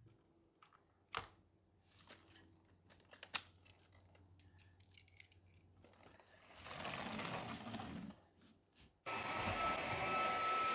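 A few sharp plastic clicks and handling noises, then about nine seconds in a Devanti 250 W cordless stick vacuum switches on and runs steadily, its motor's rushing air carrying a steady high whine.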